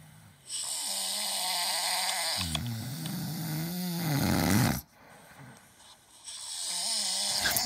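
An animal making two long, rasping, snore-like sounds with a wavering pitch: the first lasts about four seconds, and the second starts near the end.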